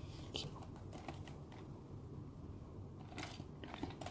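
A cardboard toy box handled on a table: a few light, scattered taps and clicks, bunched about a second in and again near the end, over a low steady hum.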